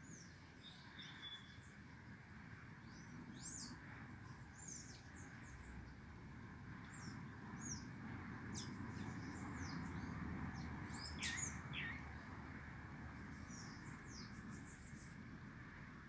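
Saffron finches in a feeding flock giving scattered short, high chirps, with a louder cluster of calls about eleven seconds in, over a faint steady low background rumble.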